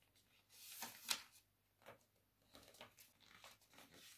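Paper rustling and crinkling as a paper airplane is folded and creased by hand, with a couple of louder crinkles about a second in, then only faint small rustles.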